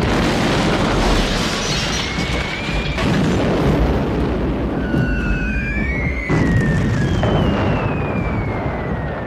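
Bomb explosions booming over a continuous heavy rumble, with fresh blasts near the start, about three seconds in, and twice more around five and six seconds. Several long whistles slide down in pitch through the second half.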